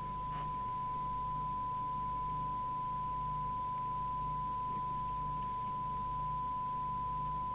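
Steady single test tone at about 1 kHz from the Midland 77-805 CB radio's speaker: the signal generator's tone modulation, demodulated by the receiver during alignment. A faint low hum sits underneath.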